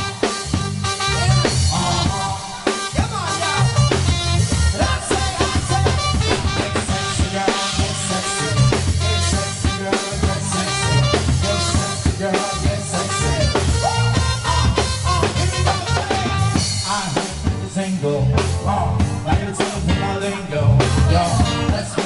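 Live band playing an uptempo dance number: keyboards over a steady drum beat with a heavy bass line.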